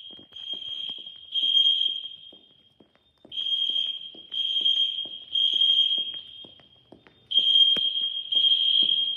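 Fire alarm sounder sounding the three-pulse temporal evacuation signal. A steady high-pitched tone comes in groups of three pulses, about a second each, with a short pause between groups and an echoing tail after each group.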